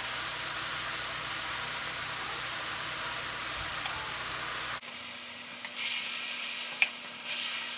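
Chopped spinach frying in hot oil in a steel pot, a steady sizzle. About five seconds in the sizzle drops away, and a wooden spatula stirs the heap of leaves, giving a few short rustling scrapes.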